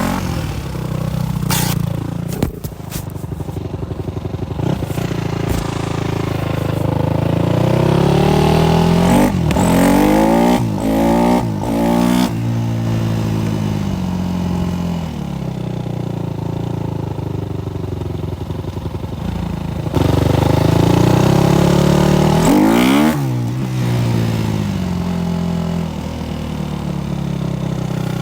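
Supermoto motorcycle engine running while ridden, its pitch rising and falling as it revs up and drops off. Quick up-and-down sweeps come about ten seconds in and again a little before the end.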